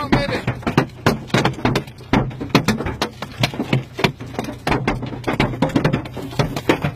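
Hailstones pelting a car's windshield and roof, heard from inside the cabin: a dense, irregular clatter of sharp hits, several a second.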